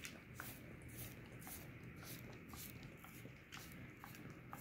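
Dog licking a bare foot: soft, wet tongue sounds repeating about twice a second, faint against a quiet background.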